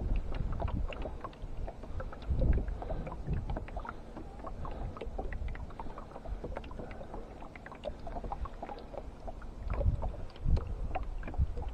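Water lapping and splashing around a landing net held over the side of a wooden rowboat, with a trout being revived in it: a steady patter of small splashes and ticks, with a few low rumbles about two and a half seconds in and near the end.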